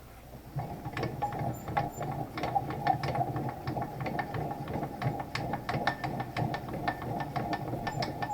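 Milling machine running and cutting plastic: a steady machine hum with many irregular sharp clicks from the cutter, starting about half a second in.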